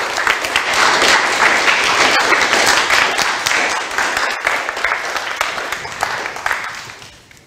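Audience applauding, a dense patter of many hands clapping that fades away in the last second or two.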